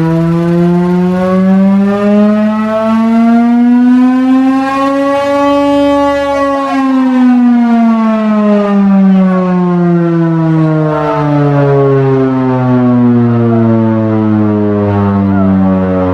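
Chrysler air raid siren, driven by its Hemi V8 engine, sounding loud: its pitch climbs slowly for about six seconds, then sinks slowly as the siren winds down.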